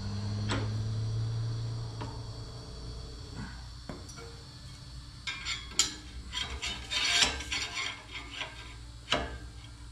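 Steel rod clinking and scraping against a half-pipe bending form held in a steel bench vise as the rod is handled for bending. A dense run of small metal knocks and scrapes comes in the middle, and one sharper clank follows near the end.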